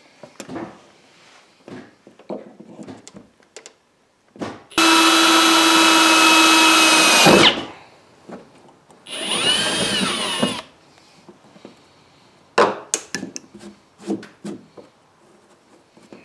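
Ridgid cordless drill drilling a hole in an aluminum boat gunwale for a rivet: a steady high-speed run of about two and a half seconds that winds down. A shorter run follows about a second and a half later, rising and then falling in pitch. Scattered light clicks and knocks come near the end as the parts are handled.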